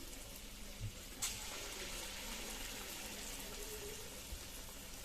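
Batter fritters sizzling in hot oil, a steady frying hiss, with one short sharp tap about a second in.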